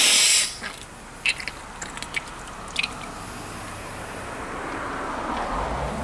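Steam injector on a small homemade boiler spitting steam and water out of its overflow with a loud hiss that cuts off about half a second in: the injector is not picking up, with boiler pressure below the 60 psi it needs. Afterwards there is a faint trickle of water siphoning through the overflow, with a few light clicks.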